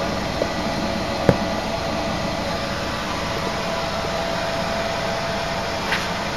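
Steady whooshing background noise, like a fan or air conditioner, with one sharp click about a second in.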